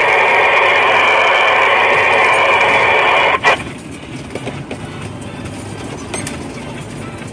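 Two-way radio in a truck cab hissing with an open channel for about three seconds, cut off abruptly with a short burst like a squelch tail; a low vehicle rumble continues beneath and after it.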